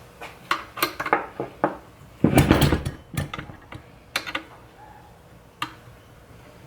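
Metal clicks and knocks from a Ford truck steering column's tilt mechanism being worked by hand, with a louder clatter lasting under a second about two seconds in.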